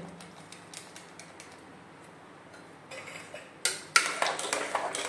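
Steel spoon stirring a thick dal-and-vegetable curry in an aluminium pressure cooker, clinking and scraping against the pot's side and bottom. A few faint clicks come first; the clinks turn loud and frequent about three and a half seconds in.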